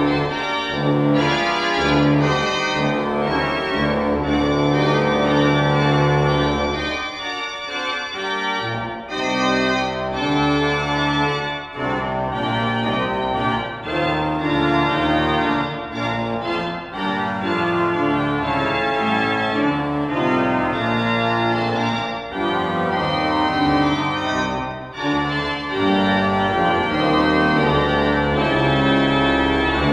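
Church organ playing the postlude at the end of the service: full, sustained chords over a deep bass line, moving chord by chord with brief breaks between phrases.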